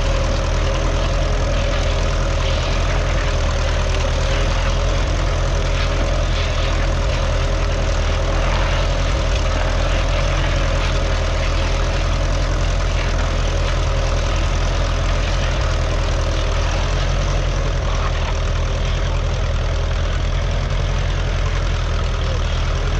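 A 1951 Ferguson TED20's 2.1-litre four-cylinder TVO engine running steadily.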